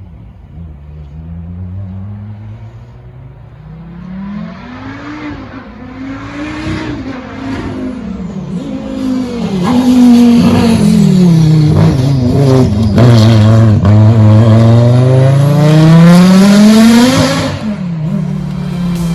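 Audi Quattro rally car's turbocharged five-cylinder engine at full effort on a rally stage, revving up and dropping several times through gear changes as it gets closer and louder. Loudest for the last several seconds, with the pitch sinking as the car slows, then climbing again as it accelerates hard before easing off near the end.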